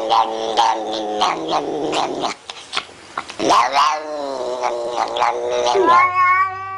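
Domestic cat yowling in a run of drawn-out, wavering calls, with a short lull a little over two seconds in and one long call rising and then falling around the middle.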